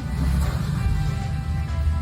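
Background music with a pulsing bass and held notes.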